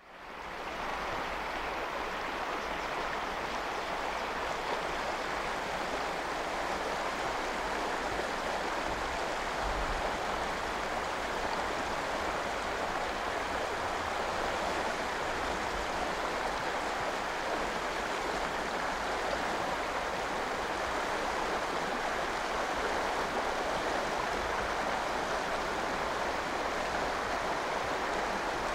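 Steady, even rush of flowing river water that fades in at the start.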